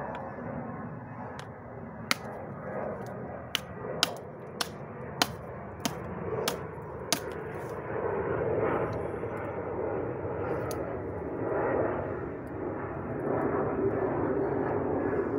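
Flint knapping with an antler tool over a leather knee pad: about eight sharp clicks of antler on flint in the first half, roughly one every half second or so. From about halfway a rougher, uneven scraping follows as the flint's edge is worked.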